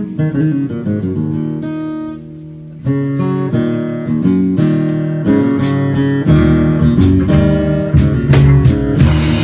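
Guitar music: plucked and strummed guitar notes, thinning to a softly held chord a couple of seconds in, then growing fuller, with a deeper bass line and sharp beats joining about six seconds in.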